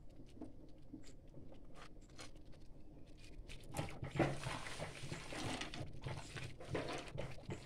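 Cashew pieces dropped into hot ghee in a small pan start sizzling and crackling about four seconds in, with a few faint clicks from handling the pan and plate before that.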